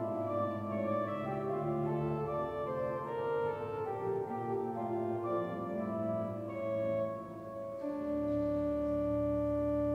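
Church organ playing a hymn in sustained chords, the notes moving step by step. About eight seconds in it settles onto a long held chord with a fuller bass.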